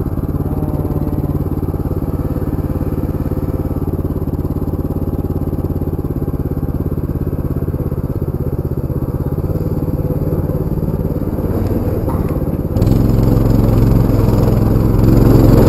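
Baja 200 minibike engine running steadily while riding over dirt, getting louder about 13 seconds in as it is throttled up.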